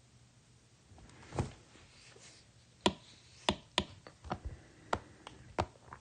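Stylus tapping on a tablet's glass screen: several sharp, short taps in the second half, after a softer, duller sound about a second and a half in.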